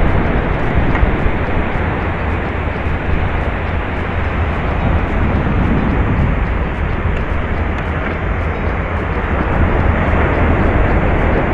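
Wind buffeting the microphone of a body-worn camera on an open beach: a steady, loud rushing rumble.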